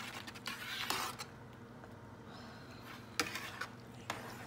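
A spoon stirring cooked macaroni into the cheese mixture: scraping and stirring for about the first second, then quieter, with a few light clicks of the spoon against the dish.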